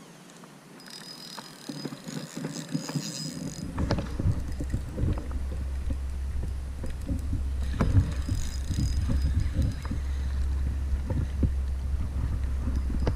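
Wind rumbling on the camera microphone, starting a few seconds in, with scattered handling knocks. A faint high buzz comes twice.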